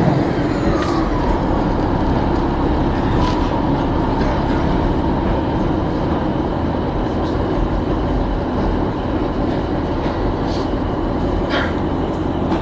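Passenger train running as it pulls out of a station, heard from inside the carriage: a steady rumble of wheels and running gear, with a few sharp clicks from the wheels.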